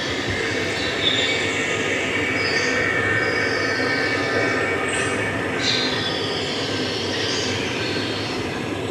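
Train wheels squealing on rails over a steady rumble, with several high squeals gliding in and out.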